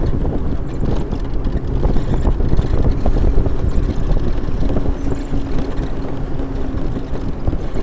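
Heavy wind buffeting the microphone over a continuous low rumble, as when travelling along a road on a vehicle. A faint steady hum comes in about halfway through and stops shortly before the end.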